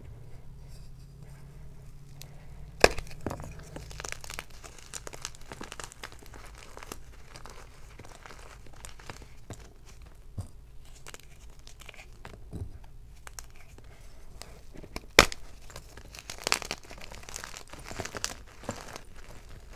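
Hard, glitter-coated blocks of Xtraining gym chalk being broken and crushed by hand: two sharp cracks as pieces snap, about 3 s and 15 s in, the loudest, amid steady crumbling and crunching of the chalk.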